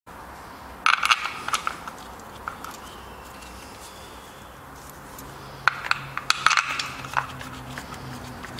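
Metal clinking and rattling in two short, irregular bursts, about a second in and again around six to seven seconds in, from tools and metal parts being handled at an engine bay job. A faint low hum comes in about halfway.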